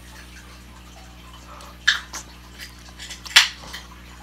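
A person slurping noodles off a fork: a short wet slurp about two seconds in and a louder one about three and a half seconds in, with a few small mouth sounds between.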